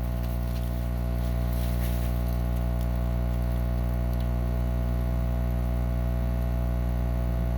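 Steady electrical mains hum, a low buzz with many overtones, unchanging throughout, with a few faint soft ticks about two seconds in.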